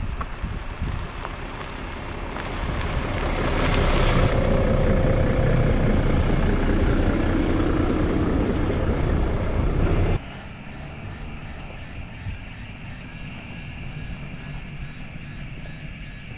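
Engine of a passing craft, growing louder over the first few seconds with its pitch sliding down, then cut off suddenly about ten seconds in; a quieter stretch with faint steady tones follows.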